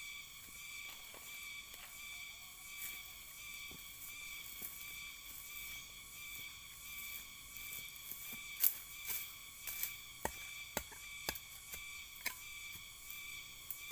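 A steady insect chorus, shrill tones held at several pitches throughout. From about eight seconds in come irregular sharp cracks and crunches, the loudest near the start of the run, as dry grass mulch and soil are disturbed close by.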